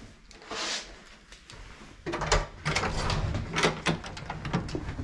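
An exterior house door being unlatched by its knob and pulled open, with a series of sharp clicks and knocks from the latch and door. A low rumble joins about two seconds in.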